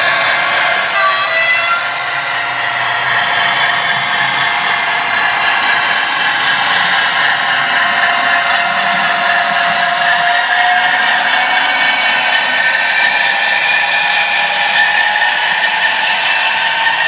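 Piko H0 model diesel locomotive pulling a train of coaches past: a steady mechanical drone and whir with the rattle of the wheels on the track.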